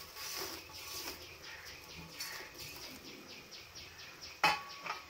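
Water boiling in a pan with diced vegetables and instant noodles, a steady run of small bubbling pops. A single sharp click about four and a half seconds in.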